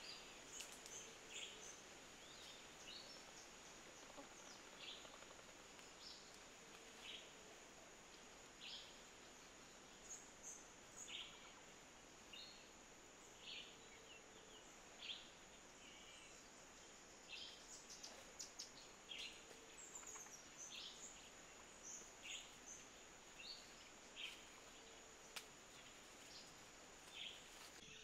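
Faint forest ambience: short high bird chirps every second or two over a steady, high-pitched insect drone, with a faint low call repeating every few seconds.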